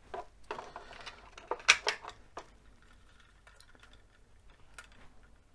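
Small plastic clicks and light rattling from handling a head-mounted magnifying visor, with a cluster of sharp clicks about two seconds in, then a few sparse ticks.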